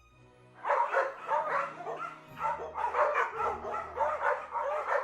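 Dog yipping and barking in a quick string of short, high calls, starting under a second in.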